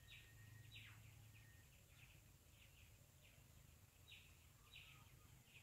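Near silence, broken by faint, scattered chirps of distant birds starting the dawn chorus, one note falling in pitch about a second in, over a faint steady low hum.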